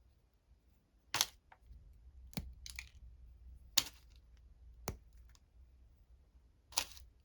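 Candy bar wrapper being handled: a handful of sharp crinkly snaps a second or more apart, with faint crackles between.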